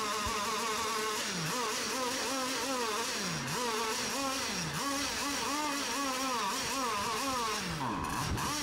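Model race boat engines running on the water, a high buzzing whine whose pitch keeps rising and falling about once a second as the throttle opens and eases.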